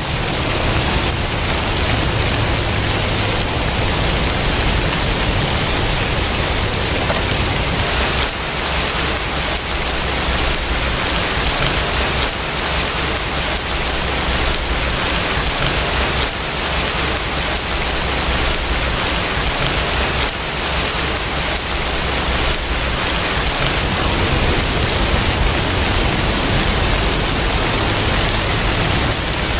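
Steady heavy rain, a dense even hiss with a low rumble underneath.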